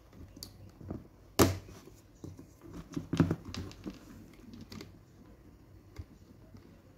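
Plastic LEGO Technic parts clicking and knocking as they are handled and pressed together, connector pins going into the Spike Prime hub and beam legs. Irregular small clicks, with two sharper knocks about a second and a half in and about three seconds in.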